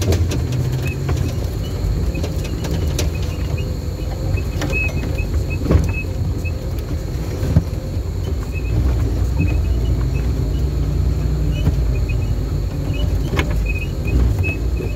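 Off-road 4x4's engine running steadily at low revs while it drives a rough dirt forest track, heard from inside the cab, with a few sharp knocks and rattles from the vehicle over bumps.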